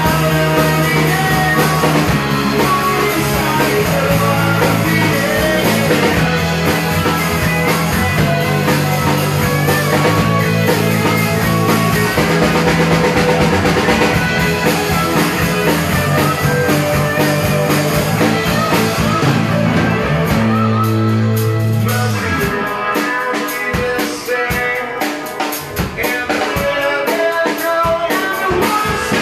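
Live rock band playing: electric guitars, bass and drum kit. About two-thirds of the way through, the bass line drops out and the music thins to drums and guitar for a few seconds before filling out again.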